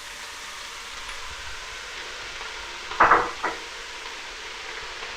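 Chopped vegetables sizzling as they fry in a pan, a steady hiss. About three seconds in, a utensil knocks twice against the pan.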